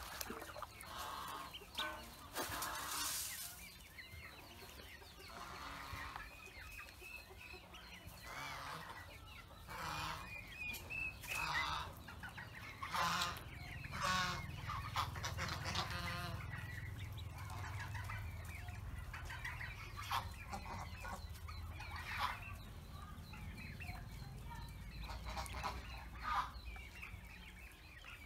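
Poultry calling: repeated short clucks and peeps from chickens and Pekin ducklings, with small splashes of water from the ducklings paddling in a basin.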